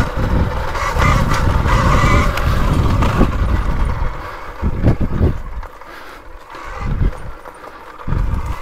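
KTM Freeride E-XC electric dirt bike riding a woods trail: a thin motor and gear whine over the low rumble of tyres and suspension working over the ground. It eases off after about four seconds, with a few thumps from bumps.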